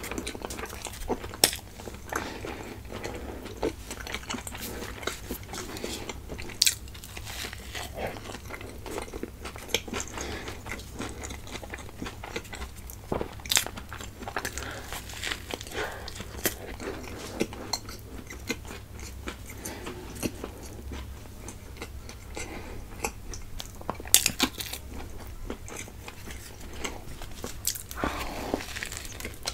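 Close-miked eating: biting into and chewing a vada pav, a fried potato fritter in a soft bun, with many irregular crunches and chews and a few louder bites.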